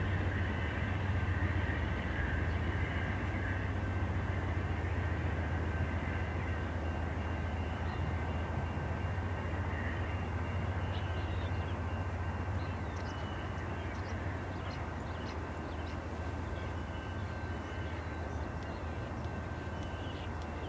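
VIA Rail passenger train pulling away: the steady low drone of its GE P42DC diesel locomotive with the rumble of the coaches rolling on the rails, easing off a little about halfway through as the train recedes. Faint high ticks join in over the second half.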